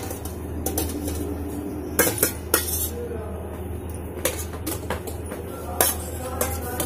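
Metal tongs clinking against a perforated steel steamer tray and a steel plate as steamed momos are lifted out: several sharp clinks, irregularly spaced, over a steady low hum.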